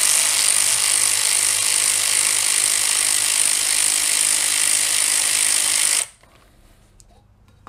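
Cordless power driver spinning a socket on an engine's valve cover bolt, backing the bolt out with a steady rattling whir. It stops suddenly about six seconds in.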